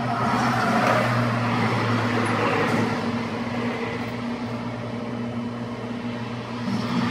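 Outdoor traffic noise: a steady low engine hum over the wash of passing vehicles. It is louder in the first few seconds, then eases off.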